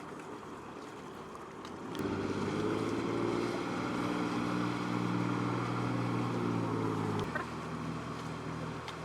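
Boat engine running steadily, much louder from about two seconds in, then dropping back abruptly about seven seconds in.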